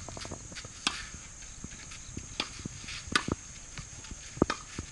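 Tennis ball being struck and bouncing on a hard court: a few separate sharp pops and knocks, the loudest near the end, over a steady high hiss.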